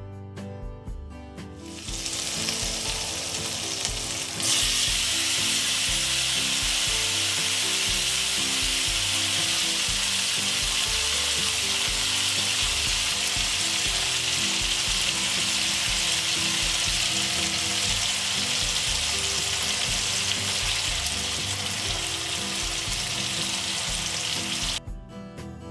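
Hot oil sizzling steadily in a frying pan, with cumin seeds and curry leaves and then chopped tomatoes in it. The sizzle starts about two seconds in, grows louder about four seconds in, and cuts off near the end, leaving soft background music.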